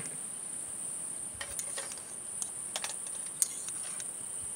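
A steady high-pitched chorus of night insects, with a few light clicks and taps of chopsticks and tableware scattered through it, the sharpest about three and a half seconds in.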